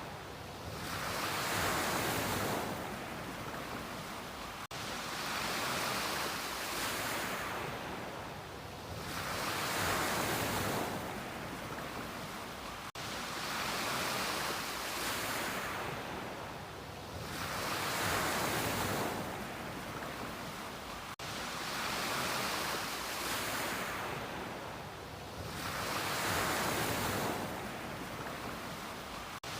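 Ocean waves washing onto a beach, the surf swelling and ebbing in a steady rhythm about every four seconds.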